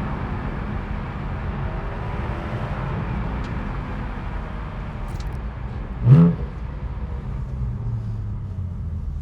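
Porsche 718 Cayman GTS 4.0's naturally aspirated flat-six running steadily on the move with road rumble, then one quick, sharp rise in revs about six seconds in: a rev blip of the kind the auto-blip gives on a gear change in Sport mode.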